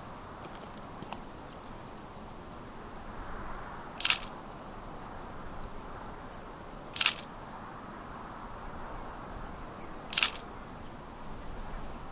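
Camera shutter clicking three times, about three seconds apart, over a faint steady outdoor background.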